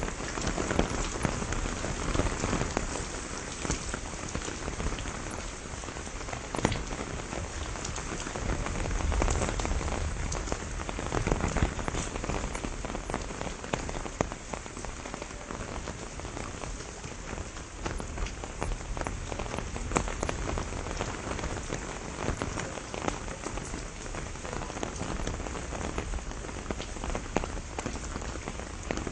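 Steady rain falling on the leaves of a pomegranate tree, an even hiss of rainfall with many sharp single drop hits scattered throughout.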